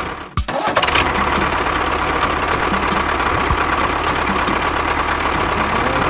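Engine running steadily with a low knocking rumble. It breaks off briefly about half a second in, then comes back.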